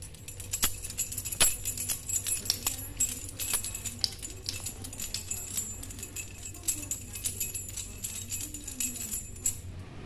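Keys on a lanyard jangling and clinking in quick, irregular bursts as a kitten bats at them, stopping near the end.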